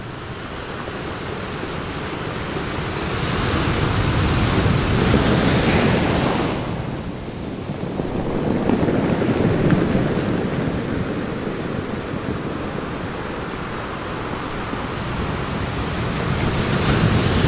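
Sea water sloshing and lapping against a camera held at the surface, with wind on the microphone. The rushing noise swells and fades in surges, hissiest a few seconds in and again near the end.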